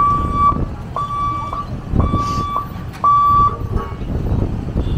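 An electronic warning beeper sounds four times, about once a second, each beep a steady single tone, over the low rumble of road vehicles crossing.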